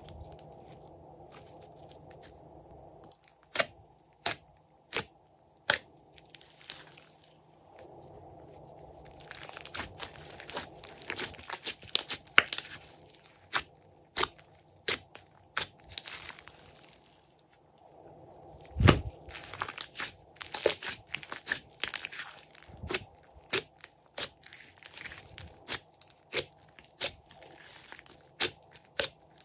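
Glossy slime being squished and kneaded by hand, giving sharp wet clicks and pops. A few single pops a few seconds in become a dense crackle, with one loud deep pop about two-thirds of the way through.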